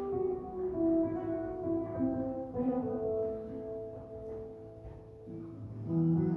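Slow instrumental music with several notes held at once, each lasting a second or more, without singing.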